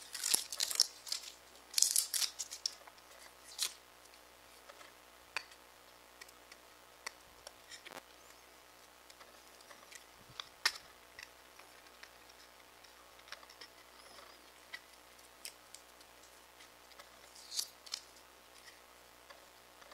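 Protective paper backing being peeled off an acrylic gear, crackling and rustling in quick bursts over the first few seconds. After that come only faint scattered ticks, then one more short rustle near the end.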